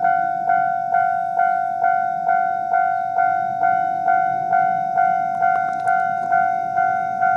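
Railway level crossing warning bell ringing in its standard tone: one clear ding repeated a little over twice a second, each fading before the next. A few sharp clicks come about five and a half seconds in, over a low rumble.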